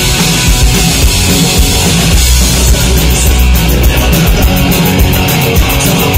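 Punk rock band playing live and loud on electric guitar, bass guitar and drums. From about three seconds in, cymbals keep a fast, even beat.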